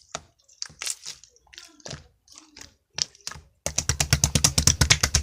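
Scattered sharp clicks and taps, then a fast, even run of loud clicks, about ten a second, for about a second and a half near the end.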